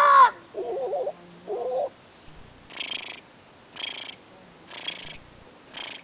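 A man imitating bird calls with his voice: the tail of a cawing call, then two short warbling calls, then four short hissy chirps about a second apart.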